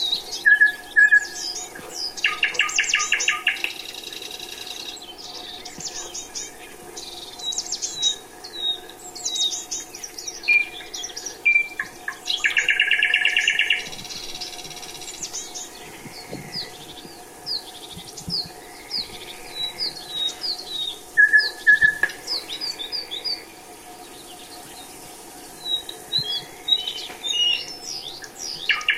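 Several songbirds singing at once: many quick high chirps and whistled notes, with a rapid trill of about a second and a half heard twice, near the start and about halfway through.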